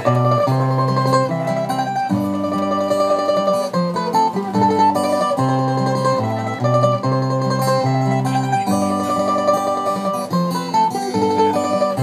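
Acoustic guitar and mandolin playing an instrumental introduction, the mandolin's picked melody over the guitar's chords.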